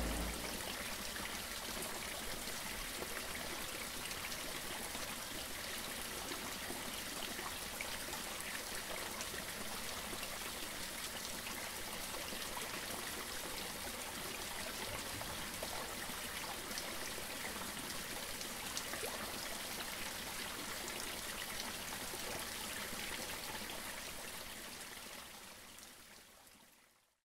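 Steady trickle of running water, fading out near the end.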